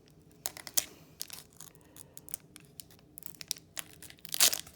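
Pokémon booster pack's foil wrapper crinkling and being torn open, a run of short crackles with a louder tear near the end.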